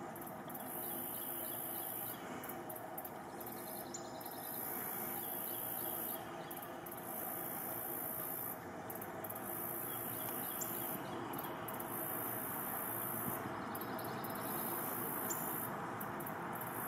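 Outdoor ambience with a continuous high-pitched chirring of insects, broken by brief gaps, over a steady hiss.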